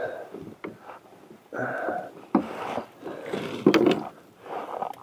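Irregular scrapes, rustles and a few sharp knocks as a landed fish is handled in a landing net against the boat.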